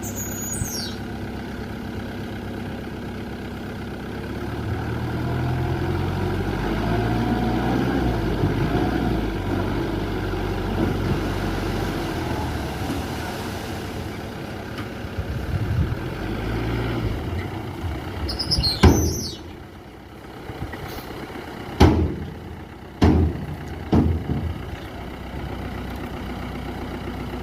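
Heavy diesel earthmoving machinery running, the engine working harder for several seconds. About two-thirds of the way through there is a sharp bang with a high falling squeal, followed by three more sharp bangs.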